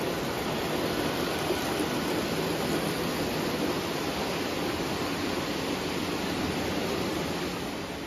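Lionel O gauge toy steam locomotive and freight cars running on tubular three-rail track: a steady rolling rumble of the wheels and motor, easing slightly near the end.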